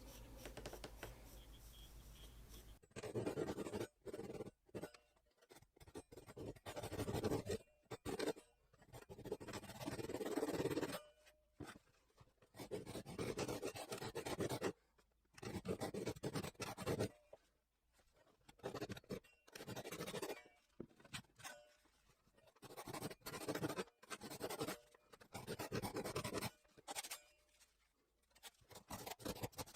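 A carving blade shaving wood from an oak axe handle in repeated scraping strokes. The strokes begin about three seconds in, each lasts up to about a second, and they are separated by short pauses.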